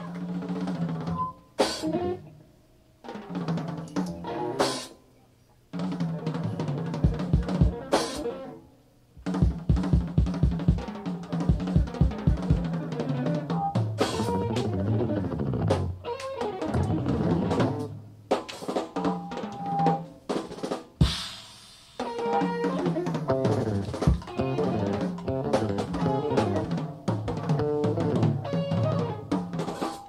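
Live jazz-fusion band on a cassette recording, with the drum kit to the fore: snare hits, bass drum and rolls answering short band figures. There are several abrupt stops in the first ten seconds.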